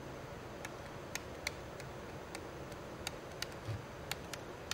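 Spring-loaded plastic tip of an active stylus tapping on a tablet's glass touchscreen during handwriting: about a dozen sharp, irregularly spaced ticks over a faint steady hum.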